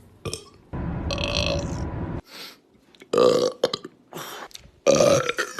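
Men burping: one long drawn-out burp lasting about a second and a half, then two shorter, louder burps, one about halfway through and one near the end.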